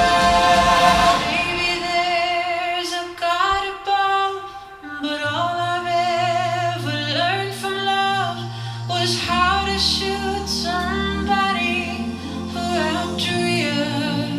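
An a cappella vocal group singing in close harmony with no instruments: held notes with vibrato over a deep bass voice that moves from note to note.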